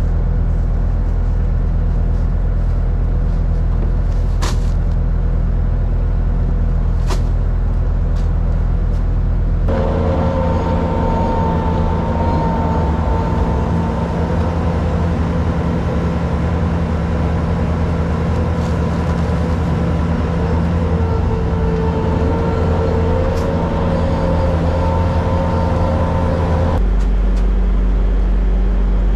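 Engine of a farm machine, such as a skid steer or tractor, running steadily under work. A whine joins it about ten seconds in and drops away near the end, as the engine note changes.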